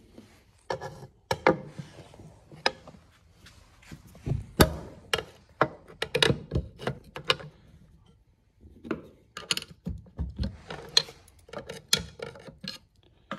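Steel pry bar and screwdriver clinking and scraping against the cast aluminium case of a Polaris Ranger 570 transmission as the stuck case halves are worked apart. Irregular sharp clinks and knocks, with a short pause a little past the middle.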